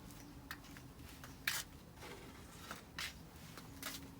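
A few short, irregular scuffing crunches, as of footsteps over debris-strewn ground, with a faint steady low hum underneath.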